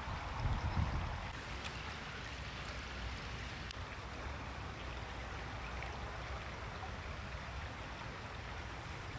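Steady rushing of a small brook's flowing water, with a brief low rumble about half a second in and a few faint ticks.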